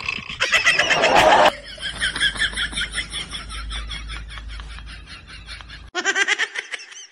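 A man yells loudly for about a second and a half. Then rapid, high-pitched snickering laughter runs on, with a second short burst of laughter near the end.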